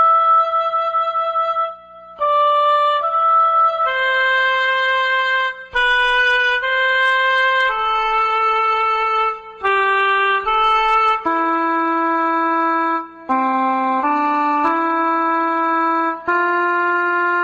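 A slow, mournful melody played on a single wind instrument, one held note at a time with short breaks between, as music for a minute of silence.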